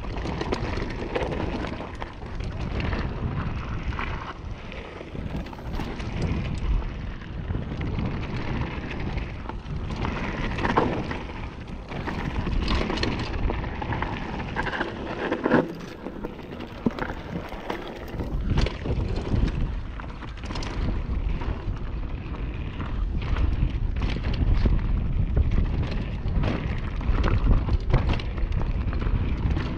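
Mountain bike riding down a loose, stony dirt trail: tyres crunching over gravel and rocks, with frequent rattles and knocks from the bike over bumps and a steady wind rumble on the microphone. The rumble grows heavier in the second half.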